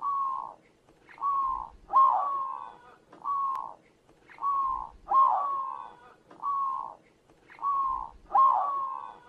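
Zebra dove (perkutut) cooing: short coos in a steady rhythm, about one a second, with every third coo louder, so the pattern repeats about every three seconds.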